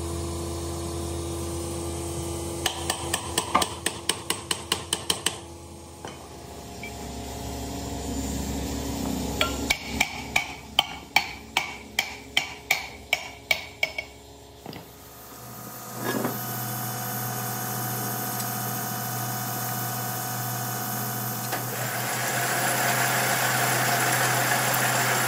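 A hammer striking the metal end cover of an electric pump motor's housing to drive it down over the shaft bearing. It comes as two runs of quick strikes, about four a second, one a few seconds in and a longer one about ten seconds in. From about sixteen seconds a steady machine hum takes over.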